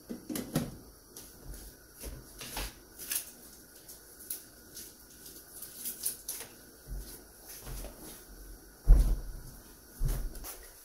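Light clicks and knocks as a glass lid is set back onto a stainless steel cooking pot, then scattered handling knocks, with two heavier dull thumps near the end.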